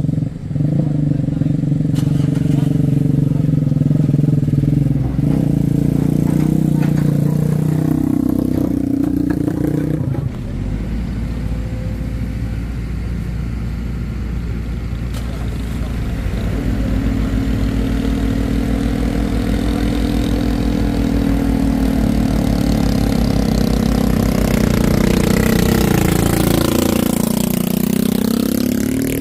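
Heavy truck diesel engine running under load on a steep climb. Its pitch drops about eight to ten seconds in, then it holds steady, and near the end it dips and climbs sharply as it revs.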